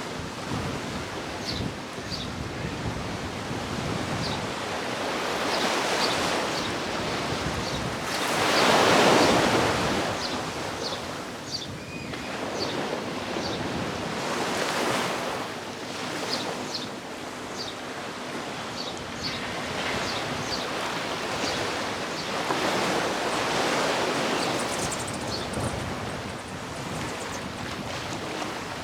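Sea surf breaking on a beach, the wash swelling and ebbing every several seconds, loudest about nine seconds in.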